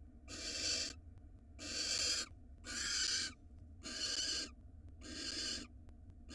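Barn owl giving harsh hissing calls, five in a row at about one a second, each lasting just over half a second.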